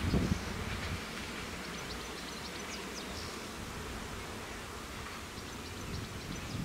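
Outdoor ambience at a level crossing: a steady low rumble of wind on the microphone, with a short gust at the very start, and a few faint high chirps about two to four seconds in. The crossing's warning bell is silent.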